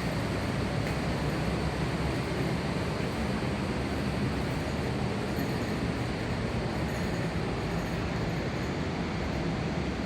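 Rushing water: a steady, even roar with no breaks or distinct events.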